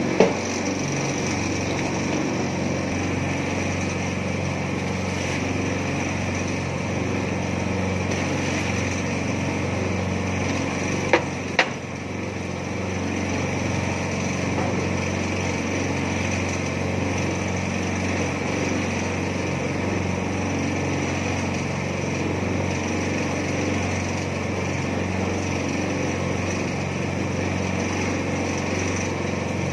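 Small petrol engine of a mini concrete mixer running steadily. There is a sharp knock right at the start and two more close together about 11 seconds in.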